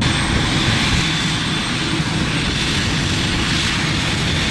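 Jet airliner engines running: a loud, steady roar with a thin high-pitched whine over it.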